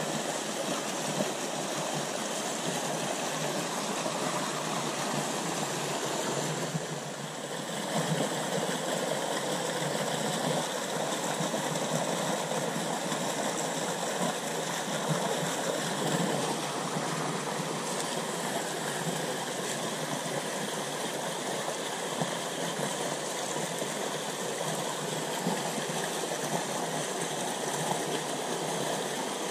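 Small rocky stream rushing steadily through a narrow rock chute: a continuous wash of white water, dipping briefly about seven seconds in.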